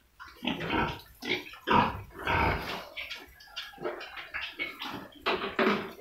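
Domestic pigs grunting in short, rough grunts at irregular intervals, loudest around two seconds in and again near the end.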